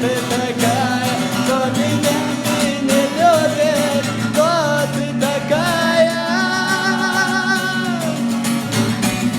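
A song: a singer draws out long, wavering notes without clear words over strummed acoustic guitar. One long held note with vibrato comes about two-thirds of the way through.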